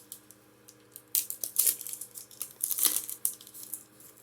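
Foil booster pack wrapper crinkling as it is handled and torn open, in two crackling stretches: one about a second in and a longer one from just before three seconds.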